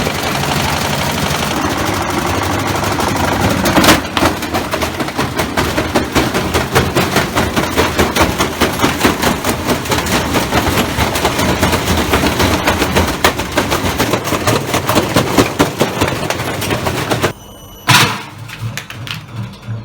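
Washing machine spinning with a heavy object in the drum, which bangs and clatters in a fast, continuous rattle. Near the end the noise cuts out abruptly, and one loud bang follows.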